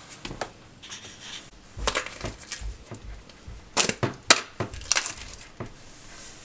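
Slime being tipped out of plastic tubs onto a pile of slime and worked in: squishing and crackling, with a few sharp snaps, the loudest pair about four seconds in.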